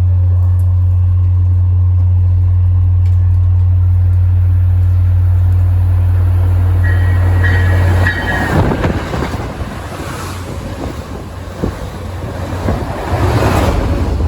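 MBTA commuter rail train led by CTC-5 cab car 1838 passing at about 72 mph. A steady low hum cuts off about eight seconds in. The hum gives way to a rushing of wheels and air with rhythmic clatter over the rail joints, which swells again near the end as the rest of the train goes by.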